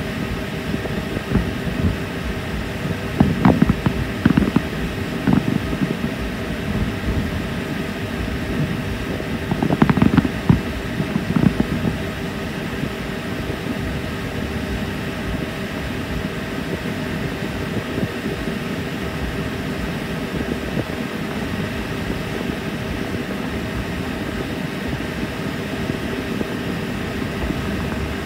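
Distant fireworks going off in two short clusters of bangs and thuds, about three seconds in and again about ten seconds in, over a steady mechanical drone with a constant hum.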